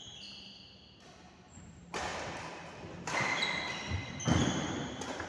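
Badminton rally: sharp racket hits on the shuttlecock, with court shoes squeaking and thudding on the court floor. It starts about two seconds in after a quiet stretch, and the loudest hits come near the end.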